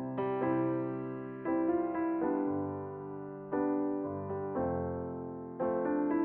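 Background music: slow piano chords, each struck and left to fade, a new one about every second.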